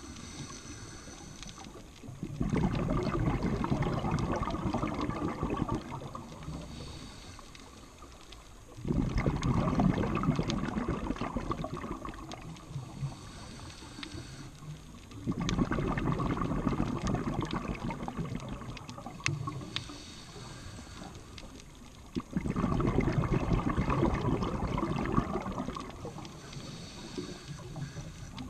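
Scuba diver's regulator breathing underwater: a rush of exhaled bubbles lasting about three seconds, four times, roughly every six and a half seconds, with quieter inhaling through the regulator between.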